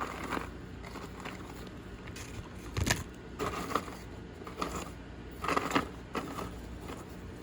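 Rustling and crinkling of a chip bag as Doritos are picked out by hand, in irregular bursts, with a sharp crackle about three seconds in.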